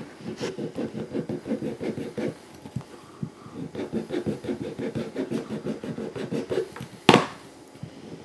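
The file of a Leatherman multi-tool rasped quickly back and forth across the edge of a rubber ring, roughening the rubber, at about four strokes a second with a short pause near the middle. A sharp click about seven seconds in is the loudest sound.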